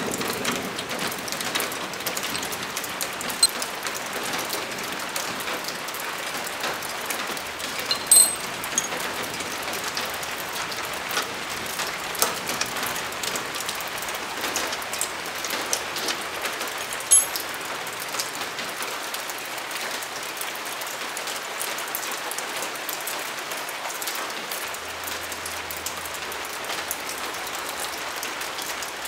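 Steady rain falling, an even patter with fine crackle. A few sharp clicks of tools on metal stand out, the loudest about 8 and 17 seconds in.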